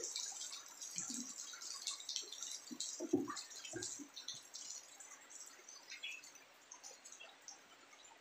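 Faint handling noises as a cardboard parcel box is set on a child's tricycle: a few soft knocks about one, three and four seconds in, over scattered light ticks.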